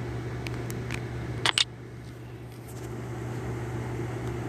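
Steady low hum under a noisy background, broken by two sharp clicks in quick succession about a second and a half in.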